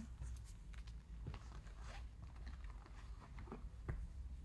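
Faint handling sounds of hands in leather gloves with a phone and its box: scattered light clicks and rustles over a low steady hum.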